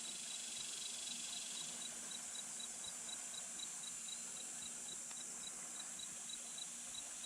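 Insects calling: a steady high hiss with a regular high chirp repeating about three times a second.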